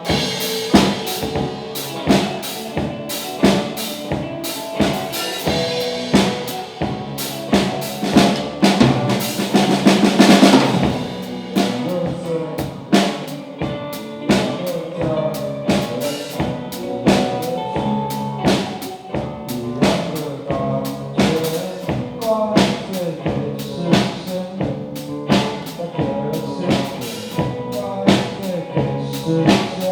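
Rock band playing live: drum kit with bass drum and snare keeping a steady beat under sustained pitched instruments, swelling to a loud peak about ten seconds in.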